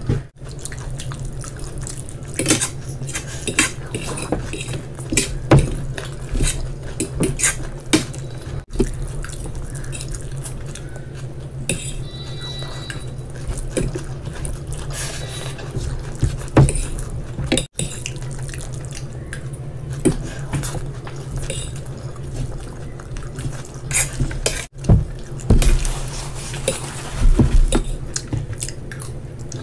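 Mealtime sounds: a fork clinking and scraping on plates and fingers working through fried rice on a plate, as noodles and rice are eaten, in many short irregular clicks over a steady low hum.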